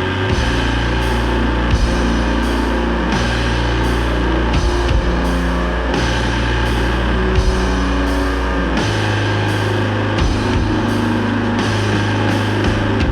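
Doom and sludge metal: heavy, dense instruments holding long low notes that change every few seconds, with drum and cymbal hits on a slow, even beat.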